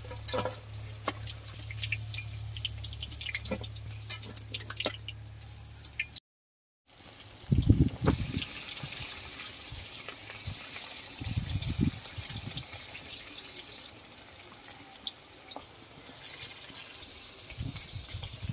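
Chicken pieces deep-frying in hot oil, sizzling and crackling steadily, with a low hum under the first part. The sound drops out briefly about six seconds in, and a few low thumps follow.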